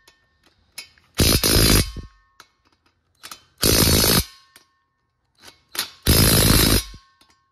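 Cordless impact wrench hammering flexplate-to-crankshaft bolts snug on an LS engine: three short bursts about two and a half seconds apart, each with a brief blip just before it, as the bolts are worked around in a star pattern.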